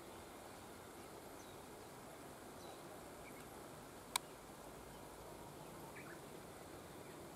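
Quiet outdoor ambience: a faint steady hiss with a few faint, short bird chirps, broken once by a single sharp click a little past halfway.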